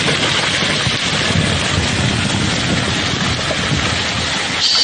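A machine engine running steadily with a dense low rumble, under wind noise on the microphone.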